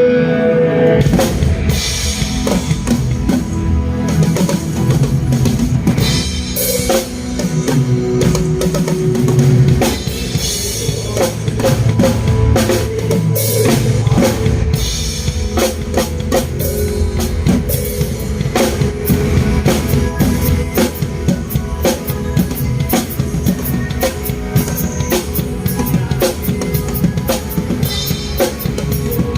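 Acoustic drum kit played in a busy rock groove, bass drum, snare and cymbals struck fast and continuously over a backing track with sustained notes.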